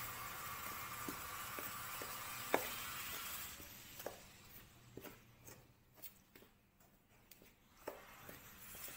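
Metal spoon stirring dry flour in a stainless steel bowl: soft scraping with scattered light clicks of the spoon against the bowl, one sharper click about two and a half seconds in.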